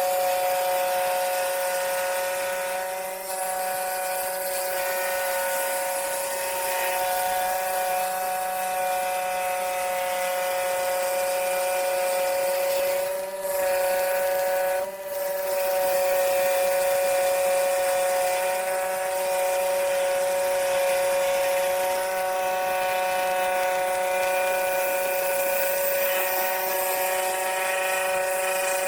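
Scroll saw running steadily while cutting wood freehand: a constant high-pitched motor hum that dips twice, briefly, about halfway through.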